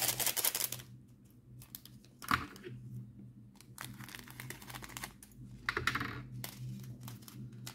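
Small plastic bags of diamond painting drills crinkling and rustling as they are picked through, with fine clicking from the loose drills, in several short bursts.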